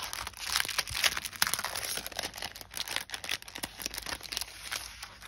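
Writing paper and envelopes rustling and crinkling as they are handled, a dense run of irregular crackles.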